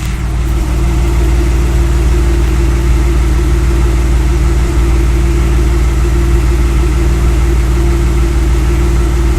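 A 2003 Audi A4's 3.0-litre V6 idling rough, with a periodic unevenness, heard from outside the car. The engine has logged random and multiple-cylinder misfire codes and lean codes on both banks.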